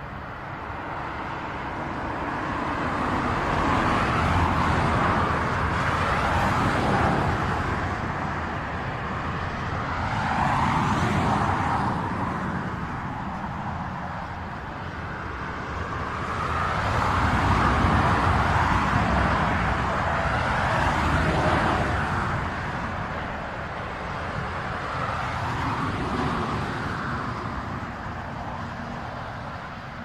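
Cars passing one after another on a highway: a rushing tyre-and-engine noise that swells as each car goes by and fades, about five times.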